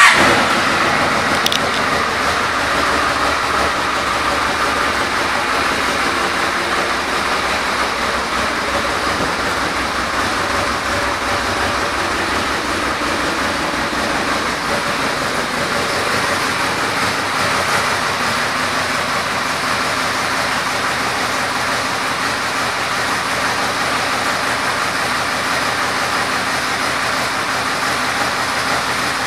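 2007 Yamaha Royal Star Venture's V4 engine starting, then idling steadily.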